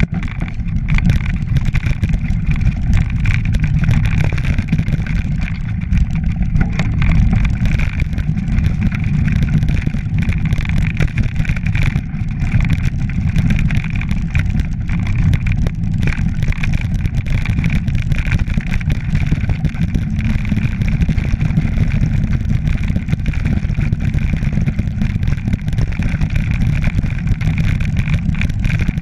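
Mountain bike riding down a rough, stony grass track: a steady low rumble of tyres and wind on a handlebar-mounted camera's microphone, with frequent small rattles and clicks from the bike going over bumps.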